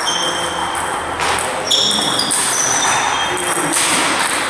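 Table tennis play in a sports hall: ping-pong balls clicking off tables and bats, with short high ringing pings over the hall's steady background noise.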